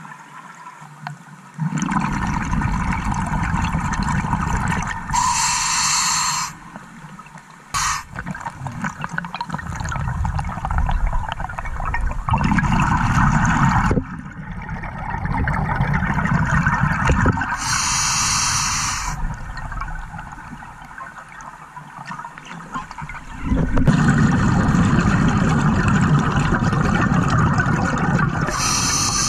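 Scuba diver breathing through a regulator underwater: long streams of bubbling exhalation, broken three times by a short high hiss of inhalation.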